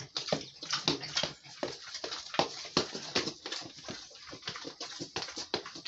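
Pregnant sow making short, irregular grunts and snuffles, several a second.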